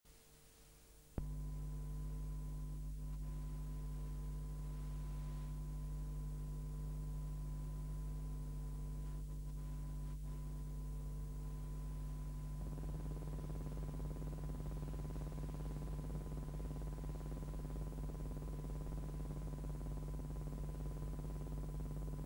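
A steady electrical hum with a thin, high steady tone above it, switching on suddenly about a second in.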